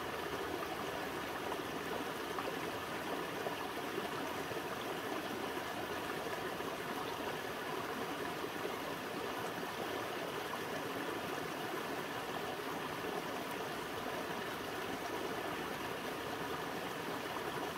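Small stream running over rocks, a steady wash of water.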